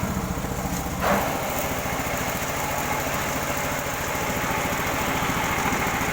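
Two-cylinder stainless-steel soybean machine for tempeh running on a test, its drive giving a steady, fast, even pulsing, with a brief louder rush about a second in.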